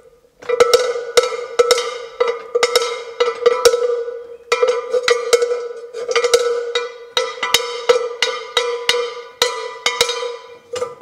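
Large metal cowbell swung by hand, its clapper striking again and again, about twice a second and a little unevenly. Each stroke rings with a clanking tone. The ringing breaks off briefly about four seconds in.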